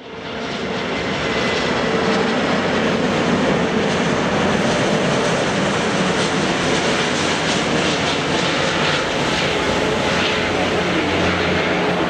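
Airbus A380's four Rolls-Royce Trent 900 turbofan engines on final approach, landing gear down: a loud, steady jet rush with faint steady tones underneath, fading in over the first second.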